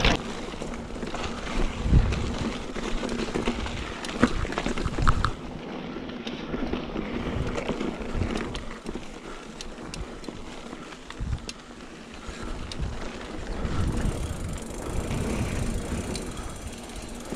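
Trek Roscoe 8 plus-tyre mountain bike ridden down dirt singletrack: tyres rolling over packed dirt, with rattles and knocks from the bike over bumps and wind rumble on the chest-mounted action camera's microphone. Louder jolts come about two and five seconds in.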